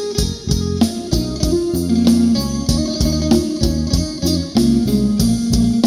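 Live band music in an instrumental break with no singing: a plucked-string lead melody over bass and drums, keeping a steady beat.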